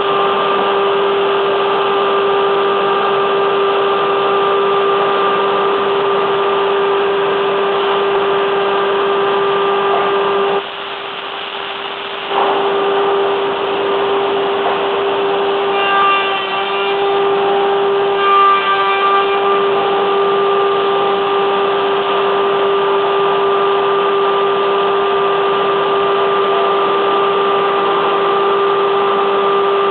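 Woodworking machinery on a plank glue-jointing line running with a steady hum and a higher whine. The sound drops for a couple of seconds about ten seconds in, and a few short high-pitched squeaks come around sixteen and eighteen seconds in.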